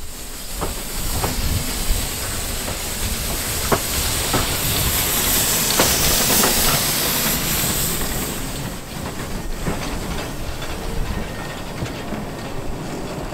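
Narrow-gauge steam locomotive No. 6 Douglas running with its coaches: a steady hiss of steam over a low rumble, with scattered sharp clicks of wheels passing over rail joints.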